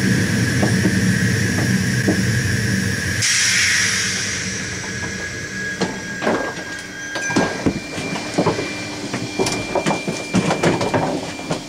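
Electric passenger train coming to a stop at a platform. Its steady running hum cuts off about three seconds in with a sudden burst of compressed-air hiss. After that come scattered clicks and knocks while it stands still.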